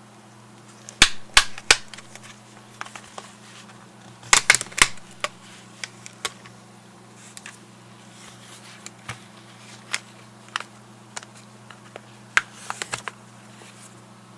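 Plastic clicks and snaps as the back housing of a Garmin Nuvi 1490 GPS is pried off by hand, its tabs slipping out of their notches. The clicks come in short clusters of two or three, the loudest a few seconds in, over a low steady hum.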